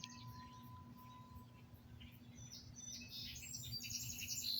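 Faint bird chirps: short, high, repeated notes, sparse at first and busier in the second half.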